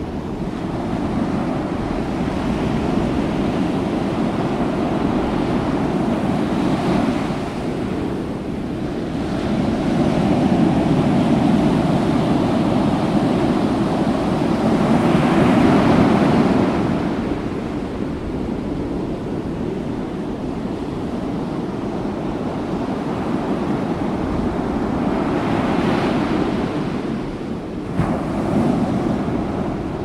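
Ocean surf: a continuous rush of waves that swells and ebbs as sets come in, with the biggest surges about a third to halfway through and another sudden surge near the end.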